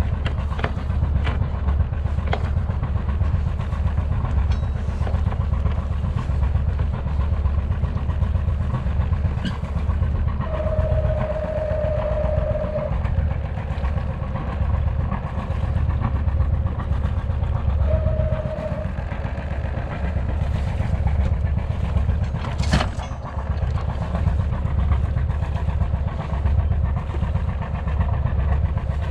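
Sailboat's inboard diesel engine running steadily under way, a constant low drone. A steady beep-like tone sounds twice, for about two seconds then about one second, and there is a single sharp knock later on.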